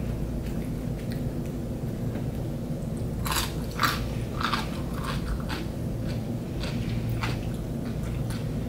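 Close-up chewing of cucumber pieces, with a run of crisp crunches starting about three seconds in, over a steady low room hum.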